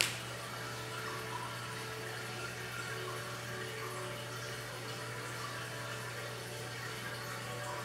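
Steady hiss over a low hum, with one sharp click at the very start.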